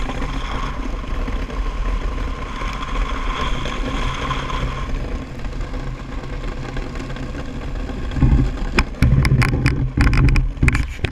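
DN iceboat's steel runners rumbling steadily over the ice, with a faint steady hum through the first half. From about eight seconds in come a string of sharp knocks and a louder rumble.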